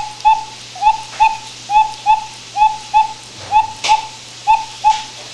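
Cuckoo clock's bellows-and-pipe cuckoo call sounding over and over, two short hooting notes about a second apart each time, about six calls in a row, the bellows newly re-covered with paper. A couple of faint clicks from handling come near the end.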